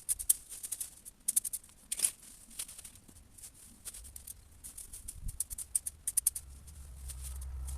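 Crisp, irregular clicking and rustling of cut hedge branches being worked, in quick clusters, with a low rumble building near the end.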